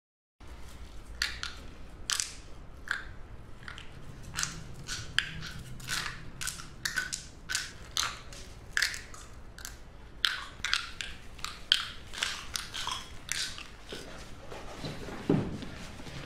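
An irregular series of sharp, crisp clicks or snaps, roughly one or two a second, with a duller thump near the end.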